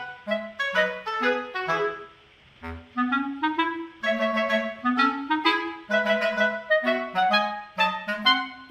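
Background music: a bouncy tune of short, quick notes, about three or four a second, with a brief pause about two seconds in.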